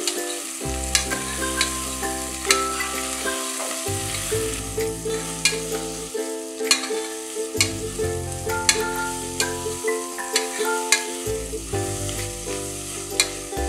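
Sliced onions sizzling in hot oil in an aluminium pressure cooker while a steel spoon stirs them, scraping and clinking against the pot about once a second. Background music with a changing bass line runs underneath.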